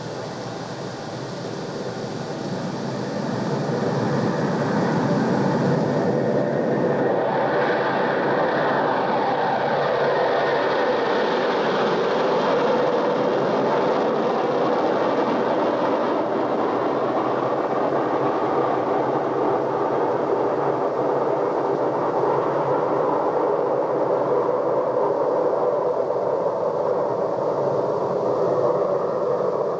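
A vehicle sound effect played back from cassette on a 1976 Sony TC-520CS: a steady rushing rumble that swells over the first few seconds and then holds, with tape hiss underneath.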